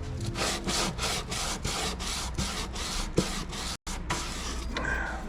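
Sandpaper rubbed back and forth by hand across the flats of a metal grinder dog, a quick, even scratching of about four to five strokes a second.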